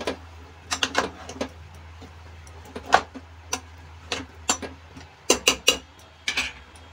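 A spoon stirring chopped vegetables and water in an aluminium pressure cooker, knocking and scraping against the pot in irregular clinks, with a steady low hum underneath.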